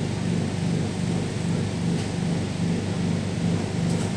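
Steady low rumble and hum inside an MTR C-train passenger car with its doors shut, the hum pulsing about twice a second.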